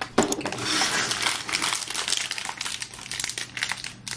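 Plastic packaging crinkling as it is handled: a dense crackle that thins to scattered crinkles about three seconds in.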